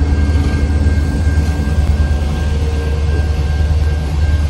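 An EMD SD60 diesel locomotive runs past close by, and a string of tank cars follows it, rolling over the rails with a heavy, steady rumble. A grade-crossing bell rings at a steady, high pitch over the rumble.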